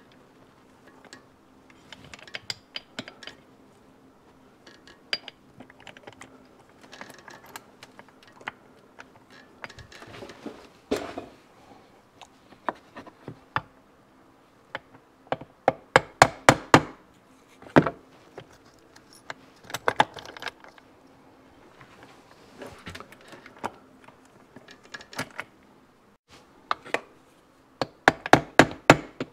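A soft-faced plastic mallet tapping the transmission shaft of a 1972 Yamaha DT2 250 MX down through its bearing into the crankcase. Light metal clinks of gears and parts being handled come first, then quick runs of sharp taps from about halfway on, the last run near the end.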